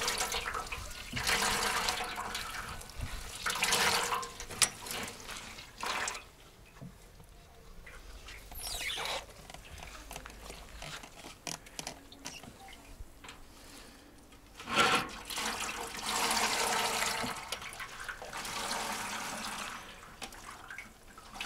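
Wet goose feathers squeezed and pressed by hand on a wire-mesh sieve, water squelching and running off them in spells, with a quieter stretch in the middle and one short sharp knock about fifteen seconds in.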